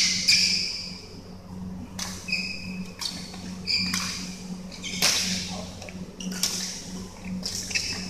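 Badminton rally: sharp racket hits on the shuttlecock about once a second, with short high squeaks of sneakers on the court floor and a steady low hum in the hall.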